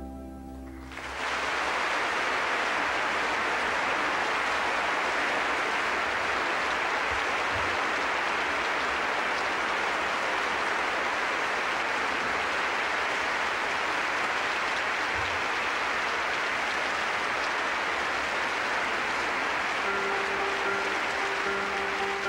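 Large concert-hall audience applauding steadily, breaking out about a second in as the last chord of the song fades. Near the end a piano starts playing softly under the applause.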